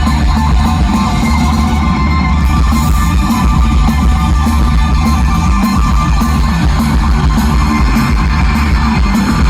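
Live rock band playing an instrumental passage at full volume, electric guitars over heavy bass and drums, heard loud and dense as from within the concert crowd.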